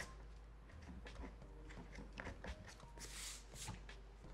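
Faint scratching of a pastel being stroked across paper in short, uneven strokes, with a brief hissing rustle of rubbing on the paper about three seconds in.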